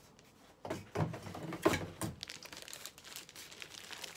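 Thin clear plastic bag crinkling and rustling as the mixer wrapped in it is handled and its packing pulled off, with a few sharp crackles in the first two seconds and softer rustling after.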